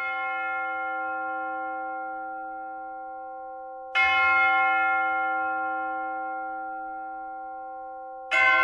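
A church bell tolling. It is struck about every four seconds, and each stroke rings on and slowly fades.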